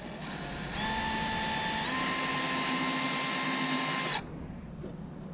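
Cordless drill with a thin bit drilling a pilot hole into the car's rear body panel. Its motor whine steps up in speed twice and stops suddenly about four seconds in.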